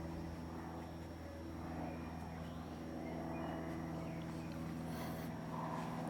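Steady low mechanical hum, a little louder near the end.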